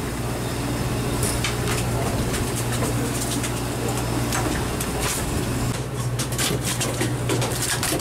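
Steady low hum of the fishing boat's running machinery, with scattered clicks and a quick run of clicks and slaps near the end.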